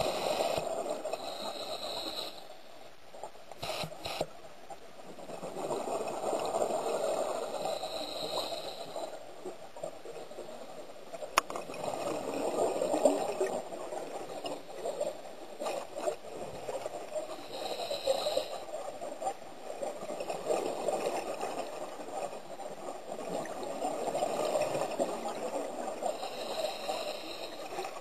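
Scuba diver breathing heard underwater: bursts of exhaled bubbles gurgling in swells about every five to six seconds, with a short hiss between some of them.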